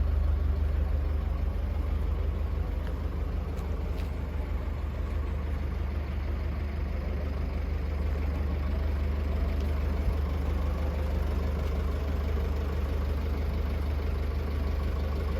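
An engine idling steadily, heard as a low continuous rumble.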